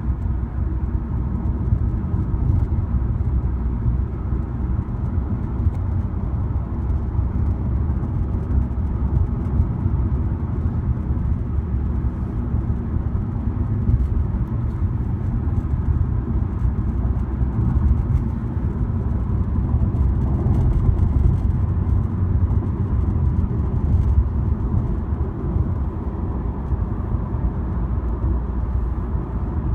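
Steady low road and engine rumble inside a moving 2018 Honda Accord's cabin, with faint, irregular clicks of a rattle from the front and rear dash trim, a fault the dealer has not yet fixed.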